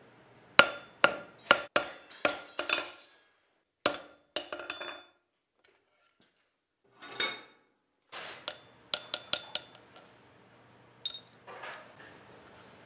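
Blacksmith's hand hammer forging a hot wrought-iron san mai knife blade on a steel anvil: a quick run of ringing blows, then softer knocks. After a short pause comes another burst of bright, ringing metal strikes and a single clink as hammer and tongs meet the anvil.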